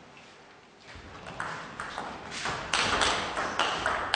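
Table tennis rally: the celluloid ball clicking sharply off bats and table, about three hits a second, starting about a second in. From about halfway through, a rising wash of noise builds under the clicks and becomes the loudest sound.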